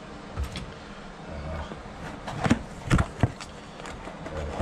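Quiet handling noise with a few sharp knocks and clatters, three of them close together a little past halfway: objects being picked up and set down during a door-knob swap.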